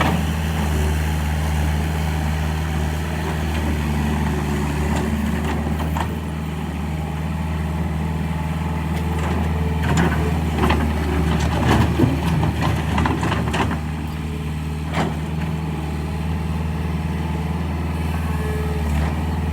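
Bobcat S175 skid steer's diesel engine running steadily at idle. A few short knocks and clanks come about halfway through.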